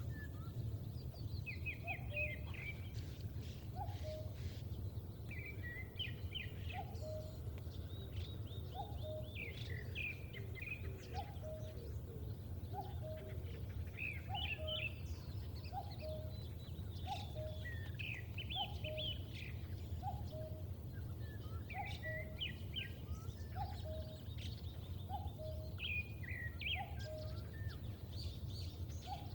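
Birds calling over open fields against a steady low background rumble. One bird repeats a low two-note falling call about every second and a half, while other birds chirp and trill higher up at irregular moments.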